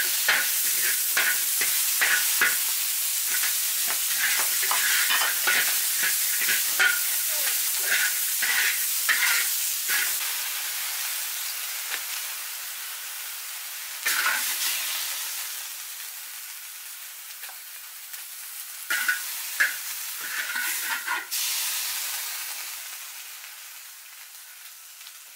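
Pigeon meat sizzling in a large wok while a metal spatula scrapes and clacks rapidly against it in stir-frying. After about ten seconds the stirring stops and the sizzle fades, broken by a few short scrapes of the spatula as the food is scooped onto a plate.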